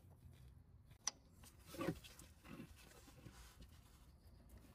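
Near silence, with one faint click about a second in and a few soft knocks around two seconds.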